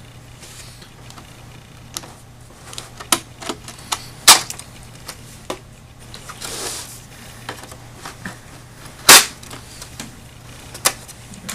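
Scattered sharp clicks and knocks of the monitor's plastic and metal parts being handled during disassembly, two of them loud snaps about four and nine seconds in, with a brief scraping rustle between them.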